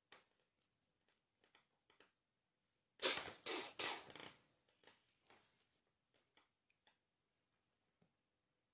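Fingers scratching and rustling on the nylon fabric of a suitcase pocket: three loud scratching strokes about three seconds in, with faint rustles and light taps around them.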